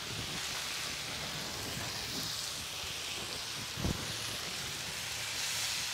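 Shrimp, chicken, beef and vegetables sizzling in oil on a disco frying pan, a steady hiss. A single short thump about four seconds in.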